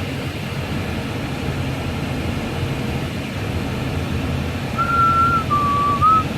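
Steady road and engine rumble of a car heard from inside the cabin while driving. Near the end a person whistles a short phrase: a held high note, a lower note, then a slide back up.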